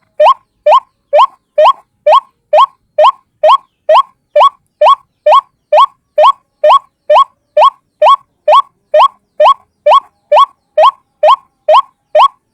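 White-breasted waterhen (ruak-ruak) call played as a looped lure recording: short upward-sweeping notes repeated evenly, a little over two a second.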